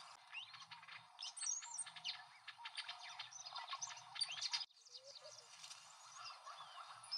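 A chorus of small birds chirping, faint: many quick chirps and short rising and falling whistles over a steady hiss. Everything cuts out briefly about two-thirds of the way through, and the chirping is sparser after that.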